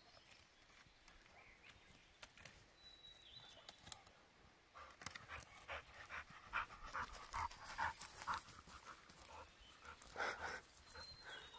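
A dog panting in quick rhythmic breaths, about two to three a second, starting about five seconds in and coming again near the end.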